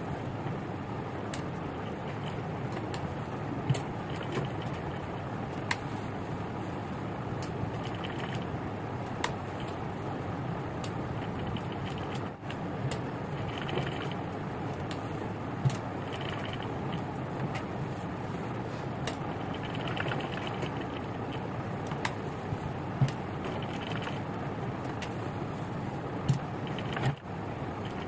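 Sewing machine running steadily, stitching around cut-work embroidery on a blouse, with scattered sharp clicks; the footage is fast-forwarded, so the run is sped up. The sound drops out briefly twice, about twelve seconds in and near the end.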